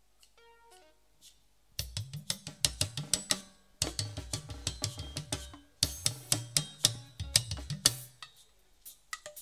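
Live band music: a few faint pitched notes, then drums and hand percussion come in together with a bass line about two seconds in and play a busy rhythm, with two short breaks.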